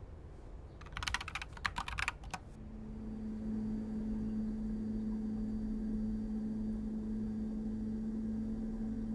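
A quick flurry of sharp, thin clicks for about a second and a half, then a steady low hum swells in and holds.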